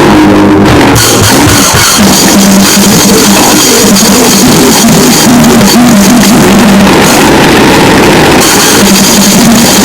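Noisegrind music: heavily distorted guitar and drums played as a dense, very loud wall of noise, with a hiss of cymbals over it from about a second in.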